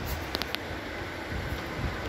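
Wind buffeting the microphone over a steady outdoor hum, with a few light clicks about half a second in.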